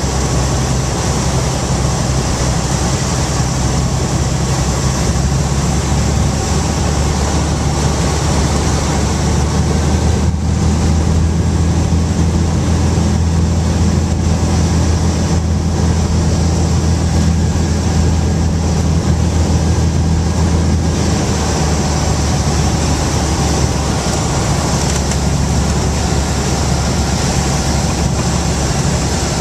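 Cabin drone of a 1960 Cessna 210's propeller and six-cylinder Continental engine on final approach. The note shifts about ten seconds in, becoming louder and lower, and changes again about twenty seconds in.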